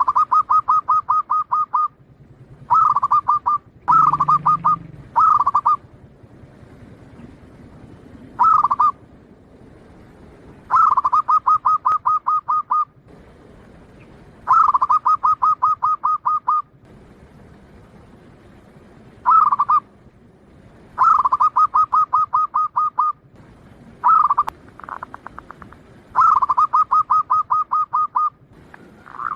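Zebra dove (perkutut), local Bangkok type, cooing its song: about a dozen phrases of quick, evenly spaced staccato notes, each phrase a second or two long, with short pauses between.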